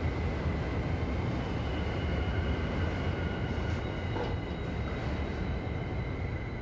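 Subway train running: a steady rumble of wheels on rail with a steady high-pitched whine over it.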